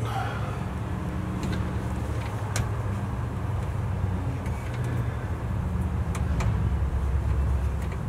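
Steady low vehicle engine rumble, with a few faint clicks of metal parts being handled.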